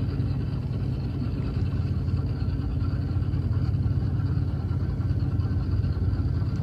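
Coast guard patrol boat's engine running steadily, a low drone heard on board.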